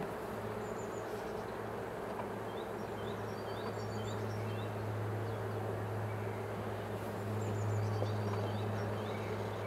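Honeybee colony humming steadily from the open hive, a low drone that swells slightly near the end.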